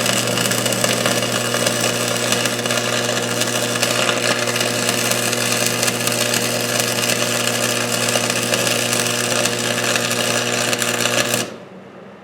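Stick-welding arc from a 1/8-inch 6013 electrode burning on steel: a steady crackling sizzle over the welding machine's hum. The arc is broken about eleven and a half seconds in and the sound cuts off suddenly.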